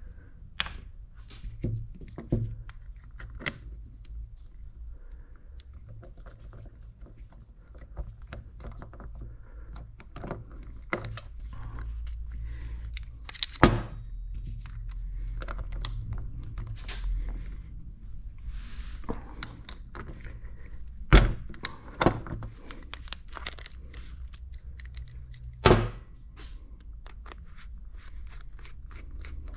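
Hand tools and metal parts being handled, with irregular knocks, clinks and jangles and a few louder knocks near the middle and towards the end, over a low steady hum.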